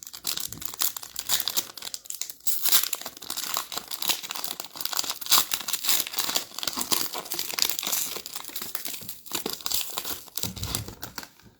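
Plastic trading-card pack wrappers being torn open and crinkled by hand, a continuous crackling run of rustles and tears.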